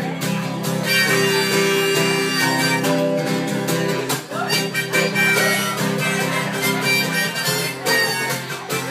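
Instrumental break of a country railroad tune: a harmonica plays held and chorded notes over strummed acoustic guitar.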